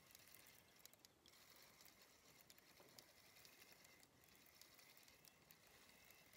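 Near silence, with faint irregular ticks from a spinning reel being cranked.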